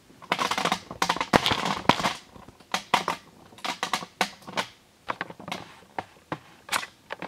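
Hands handling a vinyl reborn doll kit: a burst of rustling and knocking as the cloth-bodied doll with its vinyl head is turned over, then scattered light taps and clicks of vinyl on vinyl.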